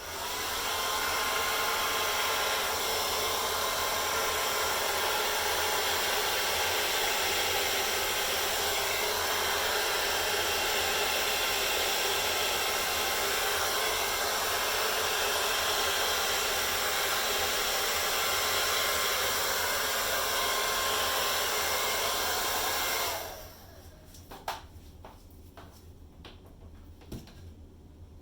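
Handheld hairdryer blowing steadily, used to push poured acrylic paint across a canvas; it switches off about 23 seconds in, leaving quiet room sound with a few small clicks.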